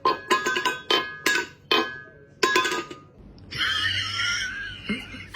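A run of about six sharp, ringing clinks of metal or glass over two and a half seconds, then a long wavering high call lasting about a second and a half.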